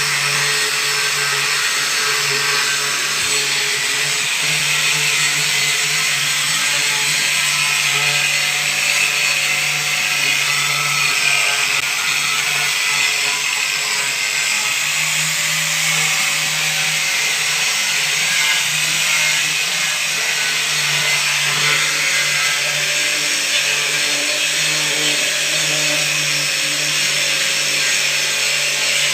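Woodworking power tool running steadily and continuously, a loud, even machine noise with a constant low hum.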